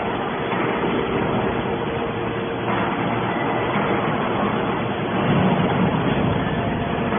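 HC81T-630 horizontal hydraulic scrap metal baler running: a steady hum from its hydraulic power unit under a dense mechanical noise, a little louder about five seconds in.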